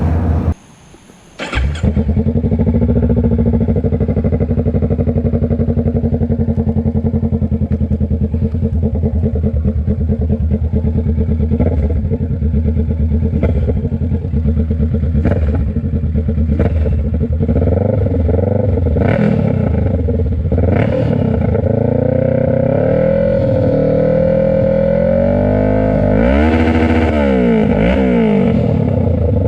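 Kawasaki Ninja 650's parallel-twin engine running loud through a direct straight-pipe short exhaust with no silencer. After a gap of about a second near the start it idles steadily, then is revved up and down in repeated throttle blips over the last few seconds.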